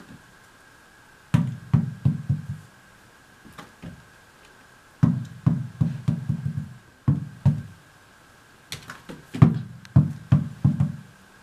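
A tennis ball dropped on a hardwood floor, bouncing in short runs of quickening thuds, several times over, with a few sharp clicks of a dog's claws on the wood.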